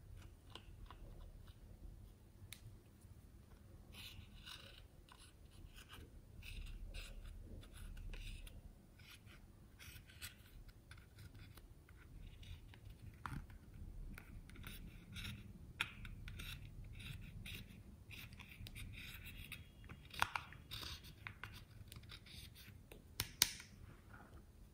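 Plastic spatula scraping and crumbling pressed eyeshadow out of a compact palette: many short, dry scratching strokes, with a couple of sharper clicks near the end.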